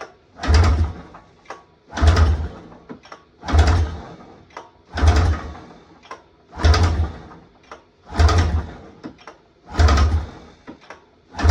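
Polaris snowmobile's two-stroke engine being pull-started by its recoil starter rope: eight hard pulls about a second and a half apart, each spinning the engine over without it catching, as the pulls are meant to prime fuel through the pump.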